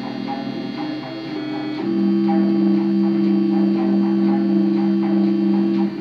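Hardware synthesizer jam: a stepping low synth sequence over a steady ticking beat. About two seconds in, a loud sustained two-note synth chord comes in and holds for about four seconds, cutting off just before the sequence returns.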